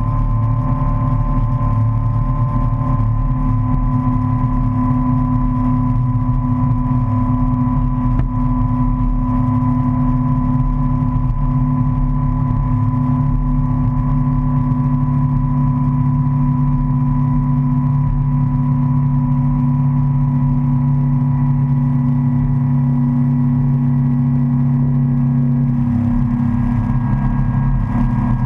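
Motorboat engine running steadily at speed under the load of towing a tube, with the rush of water in the wake; the engine note shifts slightly near the end.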